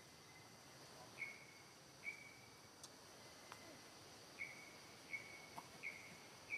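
Quiet forest ambience: a steady high insect drone with several short, high chirping calls, each a quick note that holds briefly and fades.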